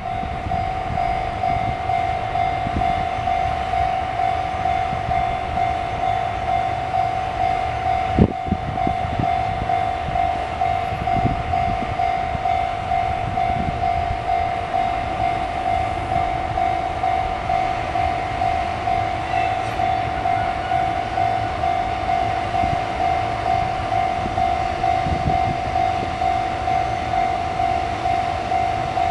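Japanese railway level crossing warning alarm sounding continuously, a steady pulsing tone repeating over and over, with a low rumble underneath. A single sharp knock comes about eight seconds in.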